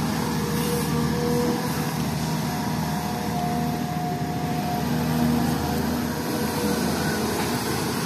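SDLG crawler excavator's diesel engine running steadily under working load while the machine levels soil, with brief whining tones coming and going.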